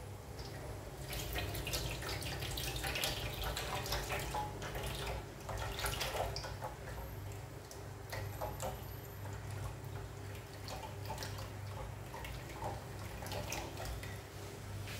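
Vegetable oil pouring in a thin stream from a plastic jerrycan into an electric deep fryer's empty pan, trickling through the wire basket with many small irregular splashes.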